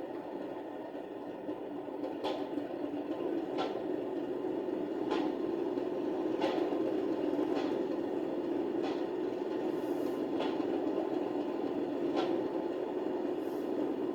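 Sound-fitted OO gauge Accurascale Class 37 model playing its carriage door slam effect: a series of sharp slams, roughly one every second and a half, over the steady idle of its diesel engine sound through the model's small speaker.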